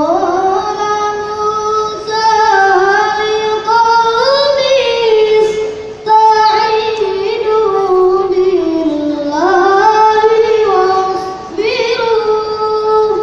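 A single high voice singing slowly in long, ornamented held notes that glide and waver between pitches, in phrases broken by brief pauses.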